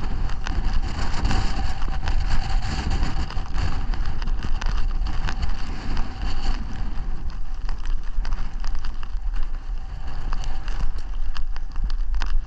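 Gusty wind buffeting the microphone in a heavy, uneven rumble, with short clicks of footsteps on a hill track.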